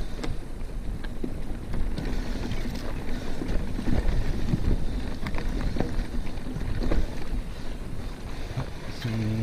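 Mountain bike riding on a dirt trail: wind rushing over the camera microphone, tyres rolling on rough ground, and frequent short rattles and knocks from the bike over bumps.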